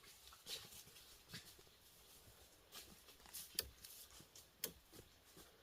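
Faint, irregular crackles and light taps, a few sharper ticks among them, over a quiet hiss.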